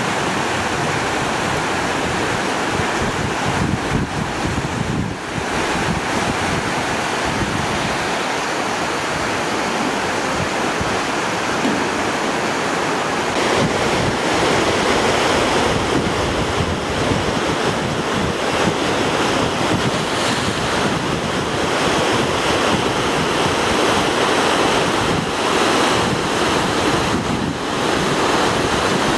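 Swollen, muddy floodwater rushing and churning over rocks and debris in a stream channel: a steady, loud rush of water, a little louder from about halfway through, with wind buffeting the microphone.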